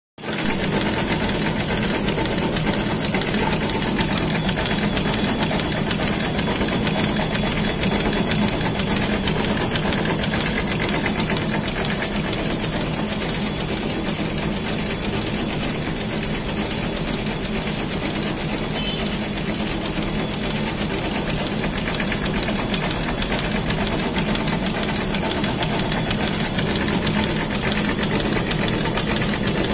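Warp knitting machine running steadily at speed: a fast, even mechanical clatter that holds without a break.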